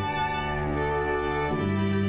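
Title music of long held chords in the low and middle range, moving to a new chord about one and a half seconds in.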